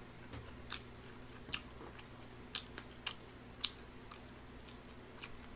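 A person chewing close to the microphone: a series of short, wet mouth clicks and smacks, about seven, at irregular intervals, over a faint steady hum.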